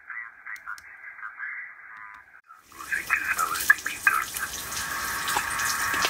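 HF transceiver receiving on the amateur bands: thin, narrow-band static with fragments of voices as the band is tuned. A little under three seconds in, the sound opens up into louder full hiss with steady whistling tones from signals on the band.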